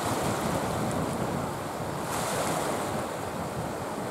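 Sea water sloshing and lapping, with wind noise on the microphone; the water swells louder about two seconds in.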